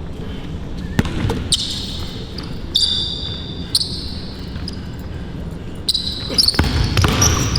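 Basketball bouncing on a court during one-on-one play, with sharp bounce impacts and several short, high squeaks of sneakers on the floor.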